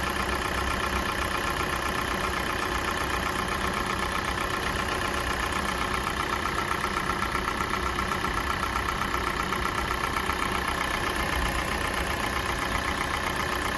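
Kia Sportage's G4NA 2.0-litre four-cylinder petrol engine idling while warming up from a cold start, at 265,500 km. It runs steadily, with a fast, even ticking over the idle.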